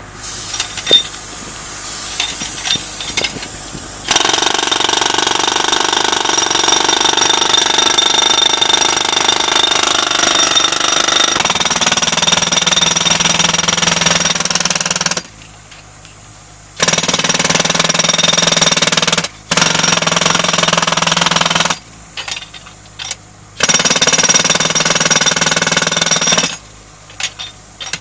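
Pneumatic breaker (air-powered jackhammer) hammering into a concrete pile head, breaking the concrete away down to its steel reinforcing bars. It starts about four seconds in and runs in long bursts, stopping briefly several times.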